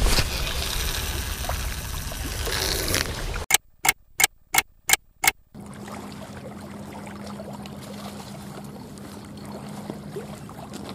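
Wind and small waves lapping on a lakeshore. A little over three seconds in the sound cuts to six sharp clicks about a third of a second apart with dead silence between them, then returns as quieter wind and water under a low steady hum.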